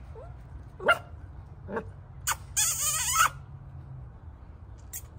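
Puppies yelping in short, sharp high cries, with one longer wavering whine in the middle.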